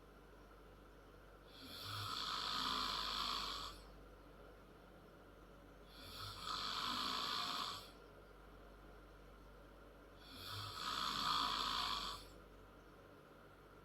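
A 10-year-old girl snoring loud and hard in her sleep: three long snores, each about two seconds, coming roughly every four seconds with quiet breaths between.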